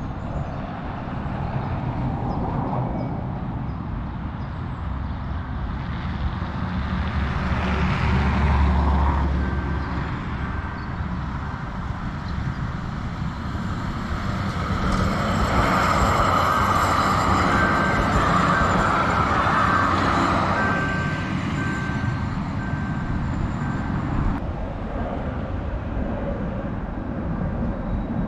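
Passing traffic: one vehicle goes by about eight seconds in, and a louder one from about fifteen to twenty-one seconds in, with a faint high steady tone over it.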